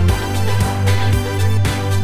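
Background music with a steady electronic beat and a deep bass line.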